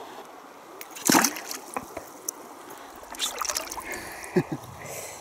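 Water splashing as a small pike is released back into a river: a sharp splash about a second in, then a few smaller splashes and sloshes around three seconds in.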